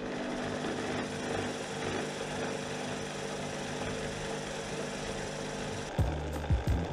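Handheld corded electric drill running steadily, spinning a macramé rope clamped in its chuck. It turns too fast for thread to be wound evenly onto the rope. About six seconds in, the drill sound gives way to background music with a beat.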